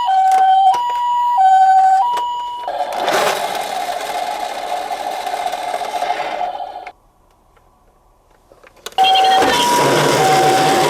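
A toy ambulance's electronic two-tone "pee-po" siren, alternating a high and a low note of about two-thirds of a second each. A few seconds in it gives way to a steady whirring noise, which stops abruptly. After a short silence the siren starts again over a noisy whir.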